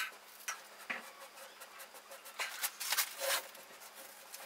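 Blue painter's tape being pulled off its roll and pressed onto the ceiling edge: a series of short, hissing rasps, bunched together about two and a half to three and a half seconds in.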